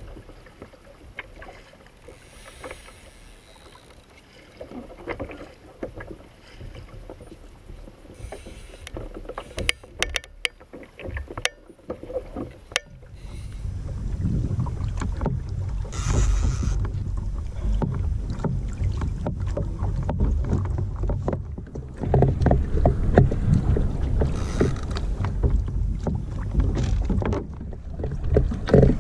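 Water sloshing and splashing against a fishing kayak's hull, with wind buffeting the microphone. It is fairly quiet with a few sharp ticks at first, then turns much louder and rougher about halfway through.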